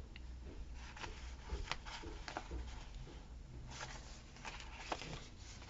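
Faint handling noise of paper stickers being peeled and pressed onto a planner page: light rustles and a few small clicks.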